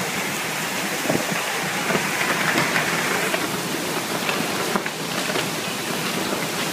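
Torrential wind-driven rain pouring down in a dense, steady hiss.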